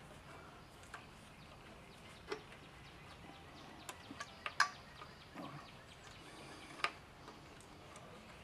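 Faint, scattered clicks and small taps of metal parts being handled as the choke mechanism is fitted onto an outboard motor's carburetor, over a low steady hiss.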